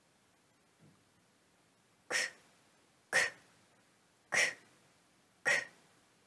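Four short, sharp "k" sounds made with the mouth, about a second apart. Each is a switch press for the iPhone's built-in Sound Switch, selecting the item that the Switch Control scan has highlighted.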